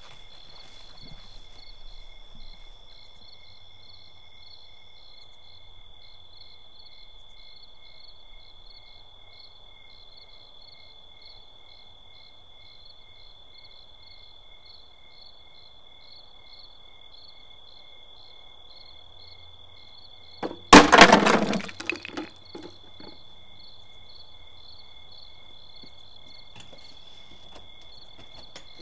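Crickets chirping steadily in a night yard. About 21 seconds in, a loud crash of a lawn statue of the Virgin Mary smashing, with pieces clattering for about a second and a half.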